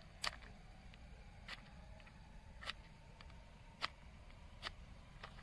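Six short, sharp clicks about a second apart, from fingers working a small box of matchbox firecrackers.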